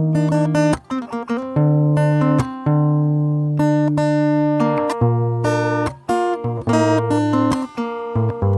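Background music on acoustic guitar: chords struck one after another, each ringing on before the next.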